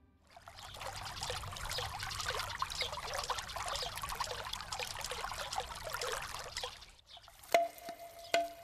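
Water trickling and splashing from a bamboo spout into a stone water basin (tsukubai), which cuts off near the end. Then two sharp knocks, each with a short ringing tone.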